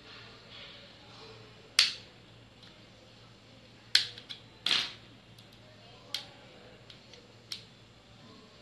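Sharp plastic clicks and snaps, about six at uneven intervals, the loudest near two seconds in, as the clips of a Panasonic Eluga i3 smartphone's plastic frame are pried loose with a thin tool along its edge.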